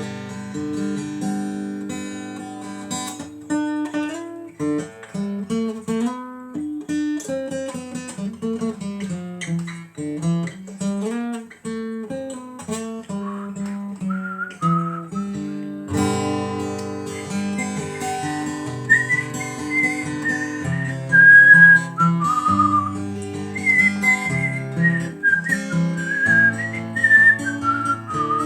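Acoustic guitar picking and strumming an instrumental passage; about halfway through, a person starts whistling a sliding melody over the guitar.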